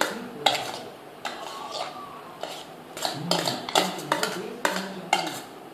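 Spoon clinking and scraping against a stainless steel plate as a small child feeds herself: a dozen or so irregular, sharp clinks, coming faster in the second half.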